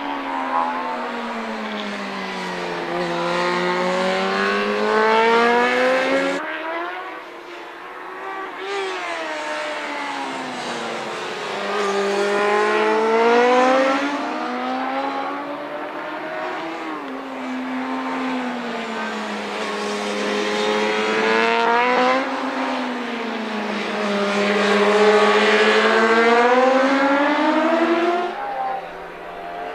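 Racing motorcycle engines, one bike after another through a corner: each engine's pitch drops as the rider rolls off and brakes in, then climbs again as he opens the throttle on the exit. The sound changes abruptly a few times as the shot cuts to the next bike.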